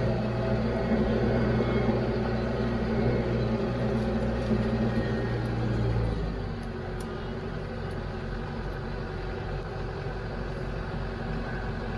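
A TYM T574 compact tractor's diesel engine running steadily. About halfway through, its speed drops and it runs on lower and quieter.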